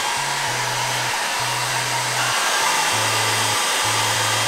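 Hair dryer blowing steadily at a constant pitch and level while hair is dried. Background music's bass line of held low notes sits underneath.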